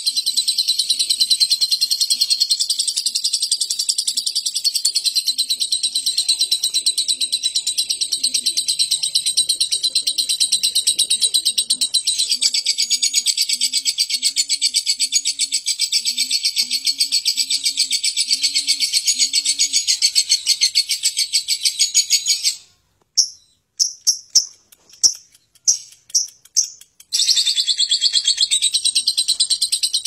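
Lovebird 'ngekek': a long, coarse, rapid rattling chatter, high-pitched and unbroken for over twenty seconds. About three-quarters of the way in, it breaks into a handful of short bursts, then runs on continuously again near the end.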